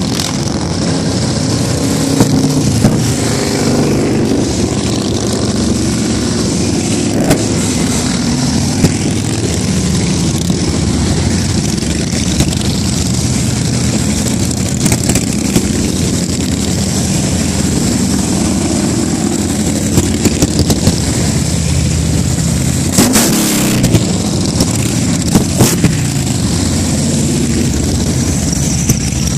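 A procession of big V-twin cruiser and touring motorcycles riding past one after another at low speed. Many engines run together in a steady, overlapping drone, with short throttle blips and a brief louder blast about three-quarters of the way through.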